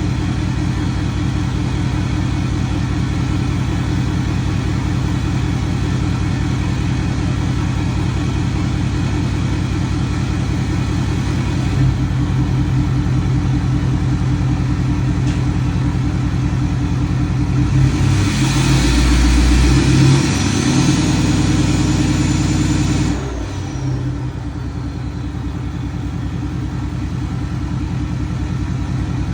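Diesel engine of a 2021 Ford F-250 Super Duty idling steadily. About two-thirds of the way through it gets louder for a few seconds with a high whine that rises and then falls, then the running sound drops off to a lower level.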